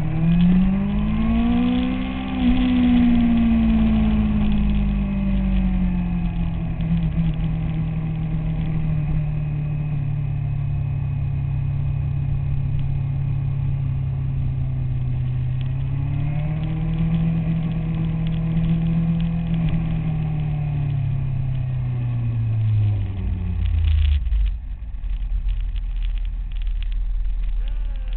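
Motorcycle engine heard from an onboard camera under way: it revs up over the first couple of seconds, eases back to a steady cruise, rises and holds again about halfway through, then drops away near the end as the throttle closes for a bend.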